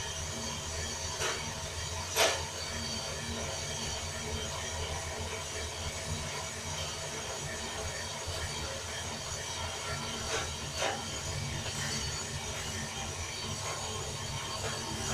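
Prototype drum coffee roaster running over a gas burner with green coffee beans in the drum: a steady low mechanical hum, with a few sharp clicks, the loudest about two seconds in.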